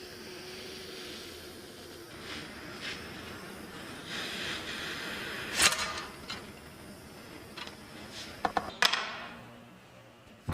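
Small metal tools and parts clinking and tapping at a repair bench over a steady hiss, with one sharp click a little past halfway and a quick cluster of clicks near the end.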